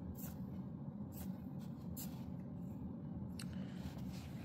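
Soldering iron tip scraped against the tip cleaner in its case, giving a few faint scratchy rustles over a steady low hum.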